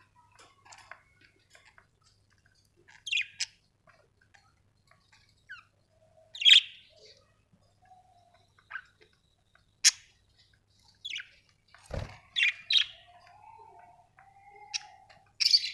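Budgerigars chirping in short, scattered sharp calls, with a few softer, lower warbling notes between them. A single thump about twelve seconds in.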